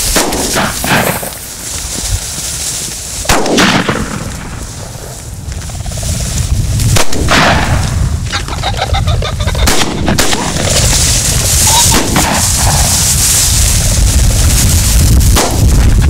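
Several shotgun shots fired at flushing pheasants, spaced a few seconds apart, over a heavy rumble of wind on the microphone.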